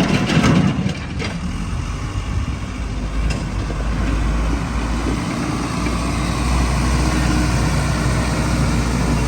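Backhoe's diesel engine running steadily with a low rumble, with a few knocks in the first second and one more about three seconds in.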